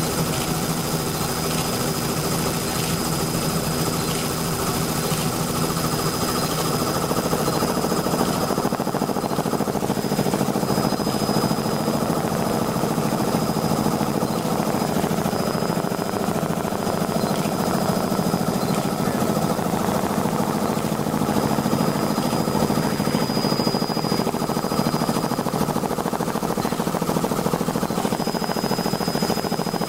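Helicopter cabin noise in flight: engine and rotor running steadily, a loud constant drone with a rapid rotor beat.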